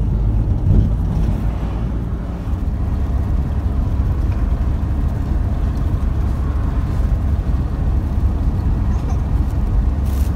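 Steady engine and road rumble heard from inside the cabin of a moving vehicle.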